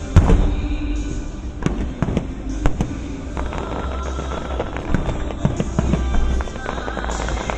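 Fireworks going off: one loud bang right at the start, then sharp cracks about every second, over music playing in the background.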